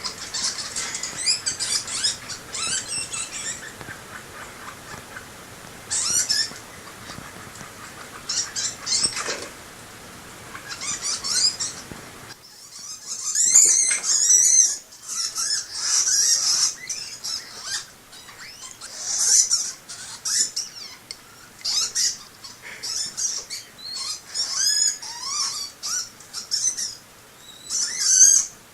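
Two pet rodents squeaking and chirping in irregular bursts of short, high-pitched calls with quick up-and-down pitch sweeps. The calls come after a sand bath, while the two chase each other around the cage, which the owner likens to mating excitement.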